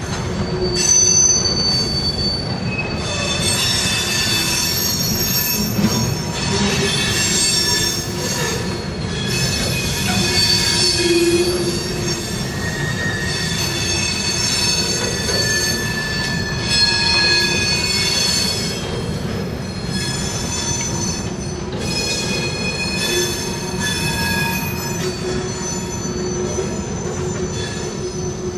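Freight train of steel hopper cars rolling past, with a steady rumble of wheels on rail and high-pitched wheel squeal that swells and fades every few seconds.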